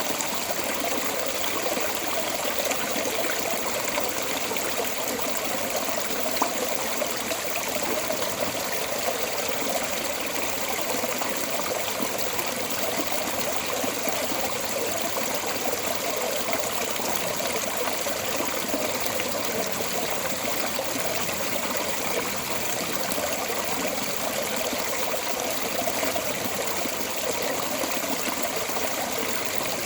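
Water flowing steadily out of a storm drain outlet, an even splashing rush.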